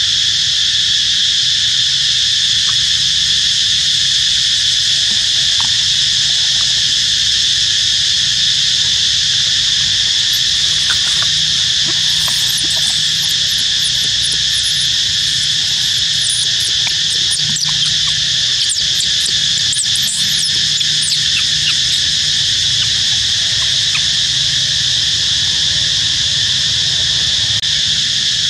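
Steady, loud chorus of insects, an even high-pitched drone made of several layered tones. A few faint short chirps and clicks come through around the middle.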